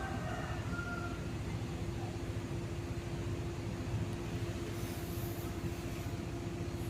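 Cosmos 56-inch (140 cm) industrial ceiling fan, model 56-CBA, running with a steady motor hum over a low rushing rumble.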